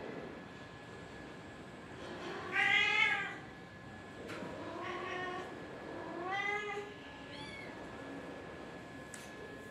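A cat meowing four times: a long, loud meow about two and a half seconds in, two softer ones after it, and a short rising one near the end.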